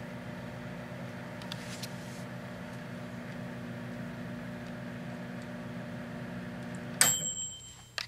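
Proctor Silex microwave oven running with a steady hum while microwaving a lit light bulb. About seven seconds in, a sharp click and a brief ring sound as the oven shuts off, and the hum stops.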